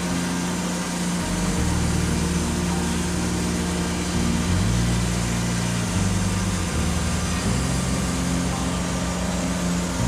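Wood-Mizer LX150 portable band sawmill running steadily, its engine under load as the band blade cuts through a poplar log.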